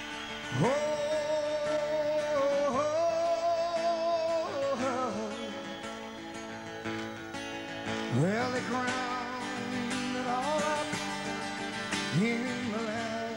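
Live song: a male singer's voice sliding sharply up into long held notes, three times, over an acoustic guitar.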